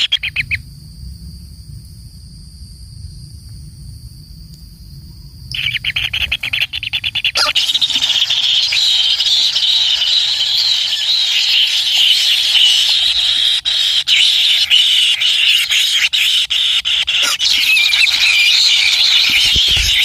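Kingfisher nestlings begging in the burrow: a dense chorus of rapid, buzzy calls that starts in stutters about six seconds in and turns loud and continuous from about seven seconds, as the parent arrives with food. The first few seconds are quiet apart from a low hum.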